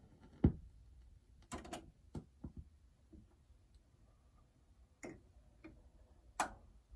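JVC QL-A2 direct-drive turntable running its automatic return: a low thump about half a second in as the tonearm lifts off the record, then a run of mechanical clicks and knocks as the arm swings back, and a sharp clack near the end as it settles on its rest.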